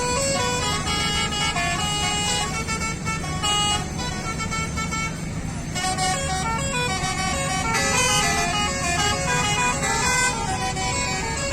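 Lorry's basuri (telolet) multi-tone musical air horn playing a melody of held notes that step from pitch to pitch, over a running engine. The notes break off briefly about five seconds in.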